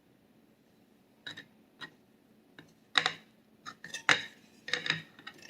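A utensil knocking, clinking and scraping against a mixing bowl while thickening cooked caramel icing is scooped out, in about eight irregular strikes starting about a second in, the loudest two near the middle.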